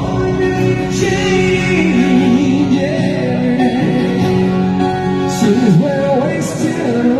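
A live rock band playing during a sound check, with a sung lead vocal over guitar and held chords.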